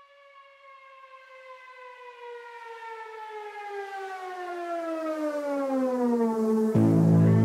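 A single siren-like tone slides slowly down in pitch while swelling louder, opening a rap track. Near the end the beat cuts in abruptly with deep, sustained bass notes.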